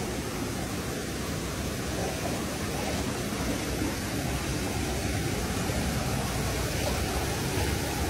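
Steady rushing of water from a small waterfall pouring into a pool.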